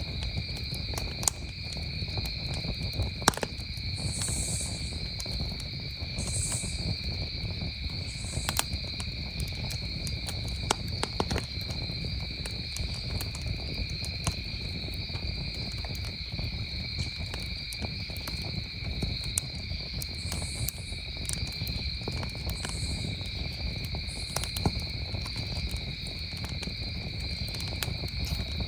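Campfire crackling with scattered sharp pops, the loudest about one and three seconds in, over a steady chorus of crickets holding two unbroken high tones, with shorter high chirps every couple of seconds.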